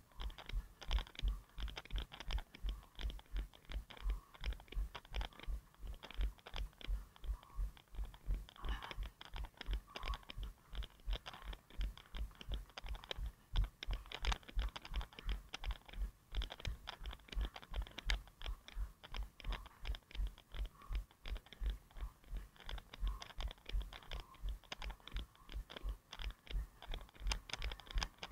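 A runner's footfalls at a steady race pace, about three a second, heard as even low thumps through a head-mounted action camera.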